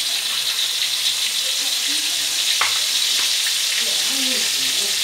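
Pounded chilli and shallot paste frying in hot oil in a wok: a steady sizzle, with one light click about halfway through.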